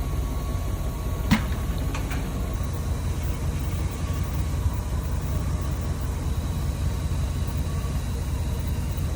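A vehicle engine running steadily with a low rumble, and a single sharp click about a second in.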